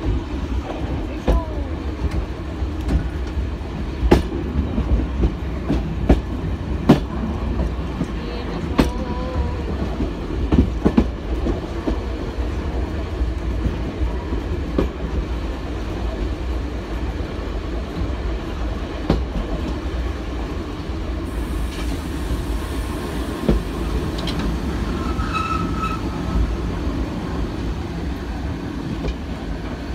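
A train running along the track: a steady low rumble, with wheels knocking sharply over rail joints and points, most often in the first dozen seconds.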